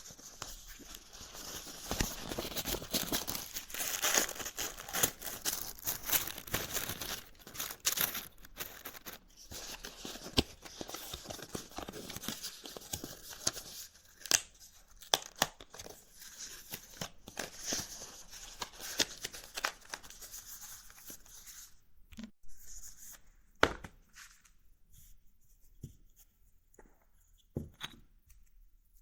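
Close-up crackling and rustling from preparing a joint: dry herb and rolling paper being worked by hand. It is dense for roughly the first twenty seconds, then thins to scattered small clicks and taps.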